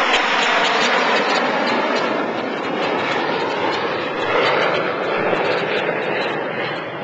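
Boeing 747-8's four GEnx-2B jet engines at high thrust on the runway, a steady loud roar.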